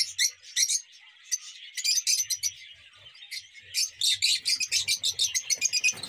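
A flock of lovebirds, green ones and yellow lutinos, chirping: a dense chatter of rapid, high, short chirps that grows busier about halfway through.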